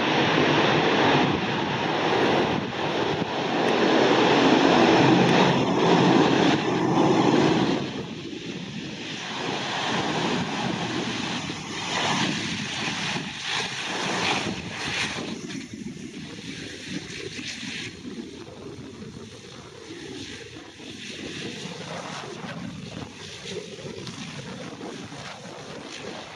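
A De Havilland Canada Dash 8-300's twin Pratt & Whitney Canada PW123 turboprops running as the airliner taxis past after landing. The noise is loud at first and drops off about eight seconds in. Wind buffets the microphone throughout.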